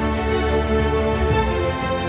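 Background music: a steady instrumental track with a regular beat.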